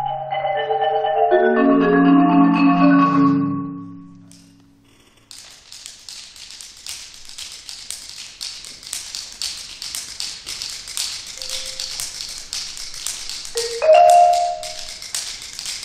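Percussion ensemble music: a run of marimba notes stepping down into the low register and dying away about four seconds in. After a short gap comes a fast, even run of light, high clicking taps. A loud mallet-struck note cuts in near the end.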